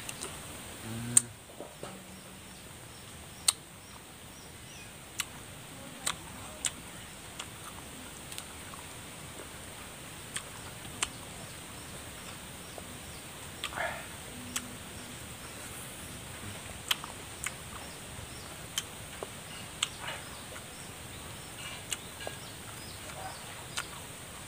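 Someone eating raw green lime: sharp, crisp crunches and mouth clicks scattered through, the loudest about a second in. A steady high-pitched tone runs underneath.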